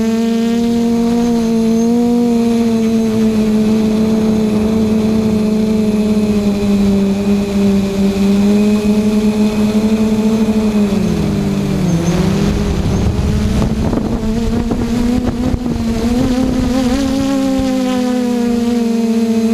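Lumenier QAV540G quadcopter's motors and propellers humming steadily, heard from the camera on board. About eleven seconds in the pitch drops as the throttle comes off, a rush of wind noise follows for a few seconds while the craft descends, and then the hum climbs back up.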